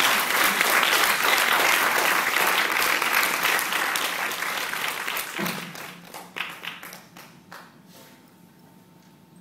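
Audience applauding, loud at first, then dying away over a few seconds to a few scattered claps.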